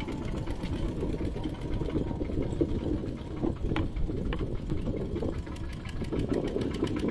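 Mini tractor engine running steadily with a fast, even beat.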